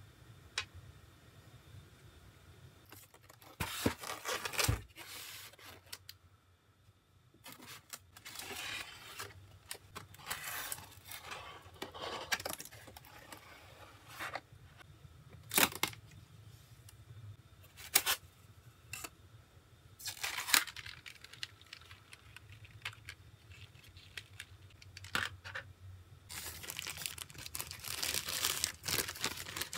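Packaging being handled: irregular bursts of rustling and crinkling plastic and paper wrapping, broken by a few sharp clicks, with a longer, denser stretch of crinkling near the end as a plastic-wrapped part is pulled out.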